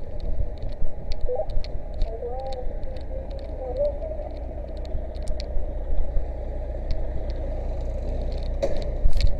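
A steady low rumble with sharp clicks and crackles scattered throughout, and a louder cluster of knocks near the end.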